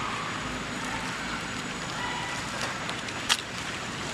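Dry leaf litter rustling and crackling under a young monkey moving and foraging on the forest floor, with one sharp snap about three seconds in.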